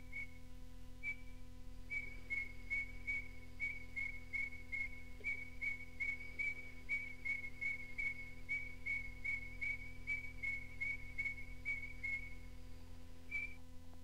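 Grey-headed robin calling: a long series of short whistled notes on one pitch, about three a second, sparse at first and then steady, over the low hum of an old cassette recording.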